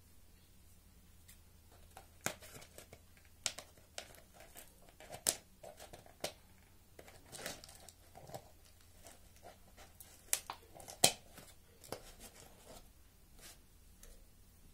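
Scissors snipping and cutting through the packing tape and wrapping of a small parcel: an irregular run of sharp clicks and short crinkling rustles, the loudest snip in the second half.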